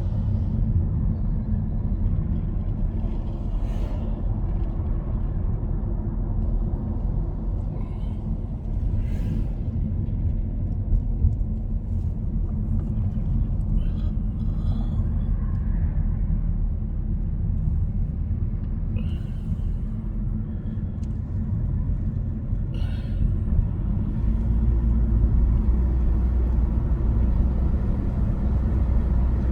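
Steady low road and engine rumble inside a moving car's cabin, getting louder in the last few seconds.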